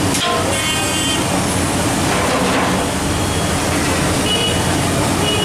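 Street traffic running steadily, with vehicle horns tooting briefly twice.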